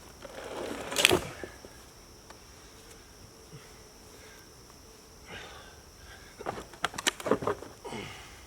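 Boulder and ratchet rock sled being worked: a scrape ending in a sharp knock about a second in, then a run of knocks and scraping from about five seconds in.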